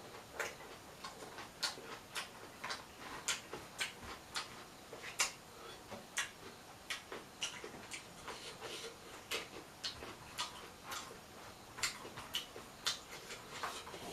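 Close-up eating sounds: irregular wet mouth clicks and smacks from chewing, a few a second.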